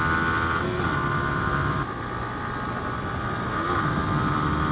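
Yamaha R15's 155 cc single-cylinder engine running hard at speed on the track, a steady engine note with wind rush over it. The note dips briefly and picks up again about a second in and again near the end.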